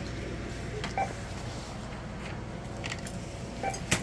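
Two short electronic beeps from a checkout barcode scanner, about a second in and near the end, over a steady store hum, with a sharp knock just before the end.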